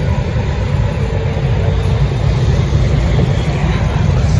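Wind buffeting the phone's microphone: a steady, loud low rumble with a hiss above it.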